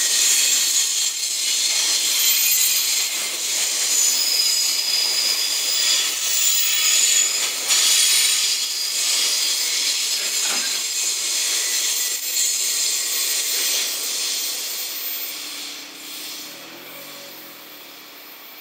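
Loaded container flat wagons of a freight train rolling past: steady wheel-on-rail noise with a few faint knocks, dying away near the end as the last wagon goes by.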